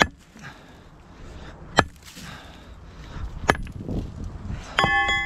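Sledgehammer blows on a limestone boulder: three sharp cracks about one and a half seconds apart. Near the end comes a clang that rings on briefly with a metallic tone.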